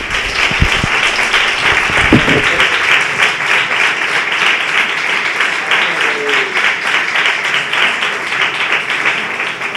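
Audience applauding: many people clapping together in a dense, steady wash, with a few low thumps in the first couple of seconds.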